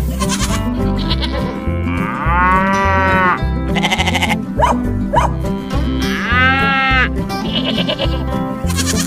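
Background music with a steady beat, with a bleating sound effect laid over it twice: one long wavering bleat about two seconds in, and another about six seconds in.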